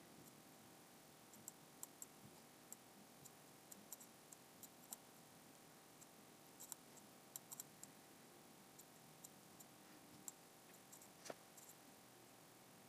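Near silence broken by faint, irregular clicks of a computer mouse being pressed and released as the lines of a drawing are made, a few of them in quick clusters.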